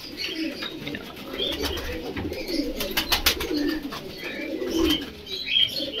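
Domestic pigeons cooing together, several overlapping low warbling coos, with a few sharp clicks among them.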